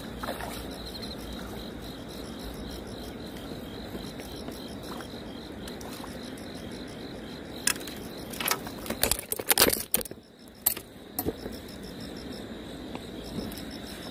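A hooked crucian carp splashing at the water's surface, a cluster of loud splashes from about eight to eleven seconds in as it is drawn in and lifted out. Under it, a steady high insect trill.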